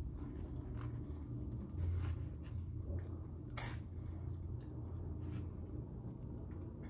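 Close-miked chewing and mouth sounds of a person eating, with a few sharp clicks, the strongest about halfway through, over a steady low hum.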